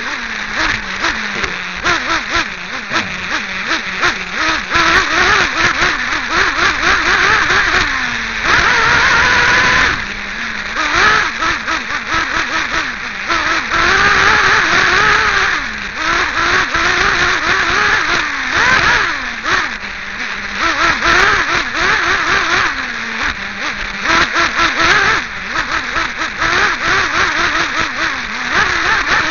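Team Associated RC8B 1/8-scale buggy's nitro glow engine, close to the microphone, revving up and down over and over as the car accelerates and brakes around an off-road dirt track, with a few longer high-pitched full-throttle runs.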